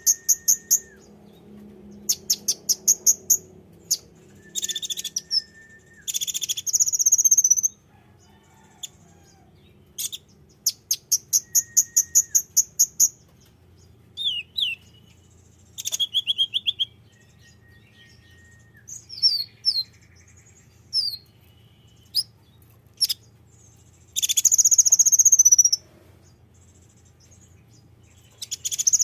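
Konin (kolibri ninja) sunbird song: high, rapid, ticking trills and sharp chirps, given in short phrases of one to two seconds with pauses between them.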